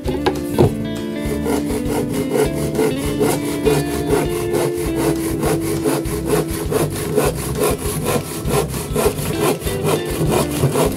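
Hand sawing: a steady run of quick back-and-forth saw strokes cutting through material.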